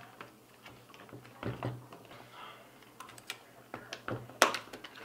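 Irregular plastic clicks and knocks as trim pieces are popped out of a stock Mustang steering wheel, with the sharpest click about four and a half seconds in.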